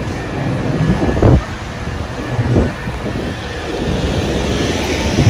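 Wind buffeting a handheld phone's microphone, heard as loud, low, blustery noise over street traffic, with a couple of short thumps from handling.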